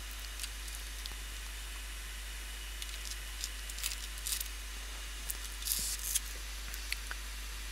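Steady low hiss with scattered faint clicks and short rustles as gloved hands press and hold a 3D-printed part on a cutting mat, the largest rustle about six seconds in.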